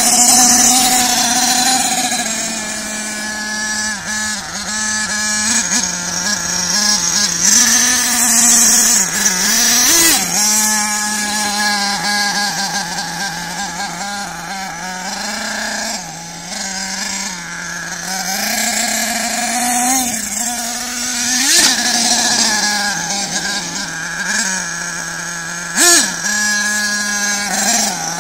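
Radio-controlled model car driving on loose gravel grit: a steady motor drone with several short rises in pitch as it is throttled up, over the hiss of tyres on the grit.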